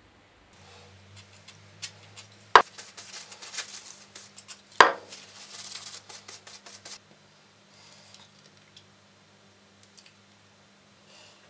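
Hand-handling sounds of a steel knife blade on a stone worktop: scattered clicks and rustling, with two sharp knocks about two and a half and five seconds in. These are followed by a hiss of tissue rubbing the blade, then faint rustles.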